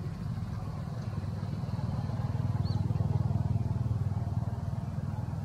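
Low, steady engine rumble of a motor vehicle running nearby, growing louder a little past the middle and easing off again.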